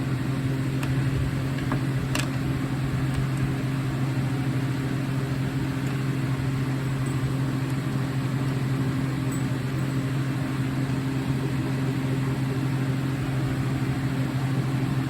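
Steady low electrical or mechanical hum, like a fan or appliance motor running, with a few faint clicks about one to two seconds in.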